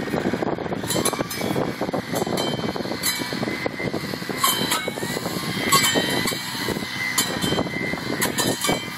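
Bucket truck engine and hydraulics running steadily while the aerial lift works in the tree, with scattered sharp clicks and snaps over it.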